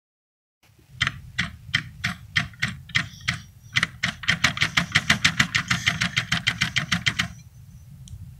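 Winegard Trav'ler satellite dish turret being rocked by hand, clicking and knocking in its loose turret bearing: way too much movement. The clicks come about three a second at first, speed up to about five a second, and stop a little after seven seconds in.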